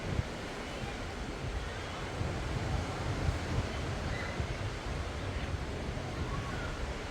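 Ocean surf washing onto a sandy beach, with wind buffeting the microphone in low, uneven rumbles.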